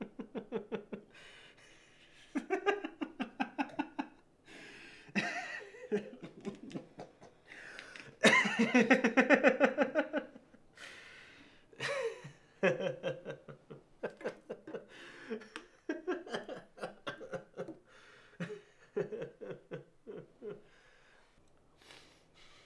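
A man laughing in long, rapid bursts with breaths between them. The laughter is loudest about eight to ten seconds in and trails off near the end.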